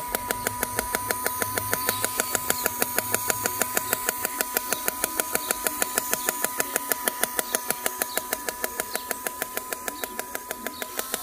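Small electric-motor-driven model motorcycle running, giving a rapid, even clicking of about five or six clicks a second over a faint steady whine.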